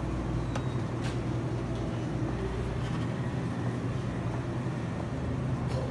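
A steady low mechanical hum and rumble, with a few faint ticks.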